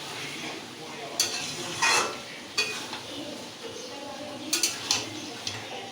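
A spatula scraping and knocking against a kadai while chicken and potatoes are stir-fried in masala, with a steady low sizzle underneath. There are several separate strokes, two close together near the middle and two more near the end.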